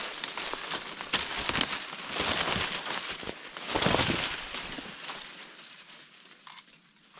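Footsteps and rustling through dry leaves and brush, an irregular run of steps that fades out over the last two seconds.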